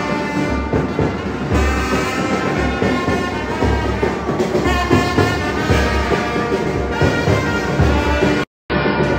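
Brass band music: horns playing a melody over heavy drum beats, cutting out for a moment near the end.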